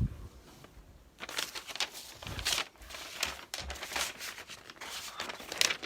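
Paper being handled close by: irregular rustling and crinkling, starting about a second in and going on in uneven bursts.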